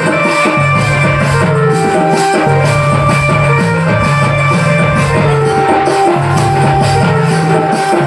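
Live folk dance music played loud through a PA: shoulder-slung barrel drums beaten by hand in a steady rhythm under a melody of long held notes.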